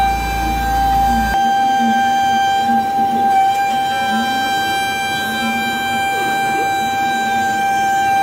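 Pocket NC v2-50 desktop CNC mill roughing a metal part: the spindle and cutter give a loud, steady high whine, with softer tones sliding up and down underneath as the axes move.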